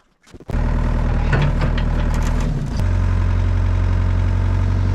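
Excavator engine running steadily, cutting in suddenly about half a second in, its low note shifting near the middle.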